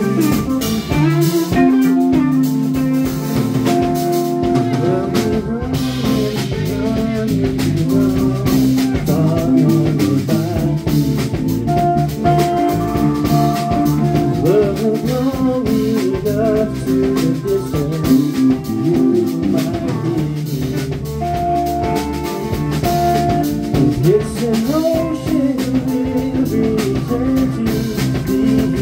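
Live rock band playing: electric guitar, electric bass, drum kit and keyboard together in a steady, continuous passage.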